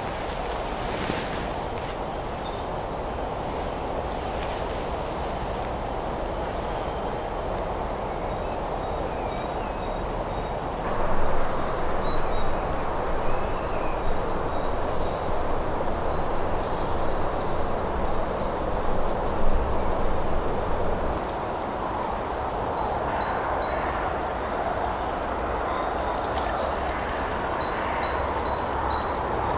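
A small woodland stream running steadily, louder for about ten seconds in the middle, with songbirds singing over it.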